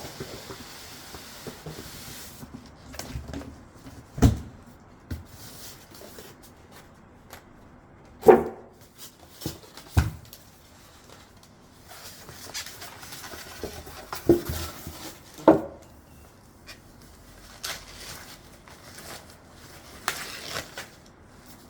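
Cardboard box and packing being handled: low rustling and rubbing, with a few sharp knocks, some carrying a short squeak.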